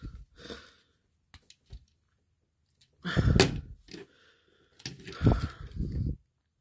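Hard plastic parts of a Transformers Studio Series Wheeljack figure being handled and pressed into van mode: a few light clicks about a second and a half in, then two louder stretches of rubbing and clacking handling noise about three and five seconds in.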